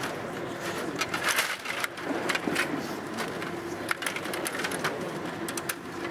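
Table hockey game in play: sharp plastic clicks and clacks of the rod-turned players, puck and rods against the board, in quick flurries, over a faint steady hum.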